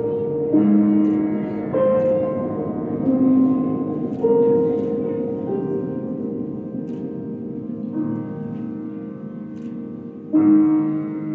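Slow piano music playing for a dance routine. Sustained chords change every one to four seconds, and a louder chord enters near the end.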